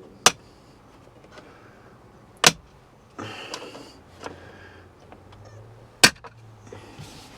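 Plastic interior trim panel being pried off with a panel-removal tool: its retaining clips let go with three sharp, loud snaps, with some scraping of plastic between them. It sounds as if the panel is breaking, but it is not.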